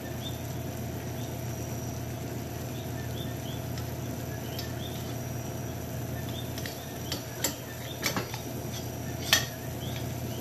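Metal clicks and taps of a clip-on dial thermometer being fastened to the rim of a stainless-steel pot of sugar syrup: a few sharp clicks in the last few seconds, the loudest near the end, over a steady low hum and faint regular high chirping.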